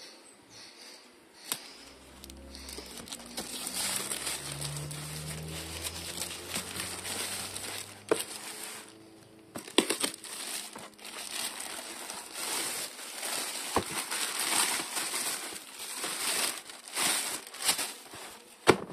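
Plastic courier mailer bag crinkling and rustling as it is pulled off a cardboard shoebox, with a few sharp snaps along the way.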